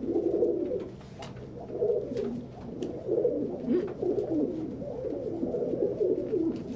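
Domestic pigeons cooing, several low rolling coos overlapping throughout, among them a cock's courtship cooing at a hen. A few faint clicks show through.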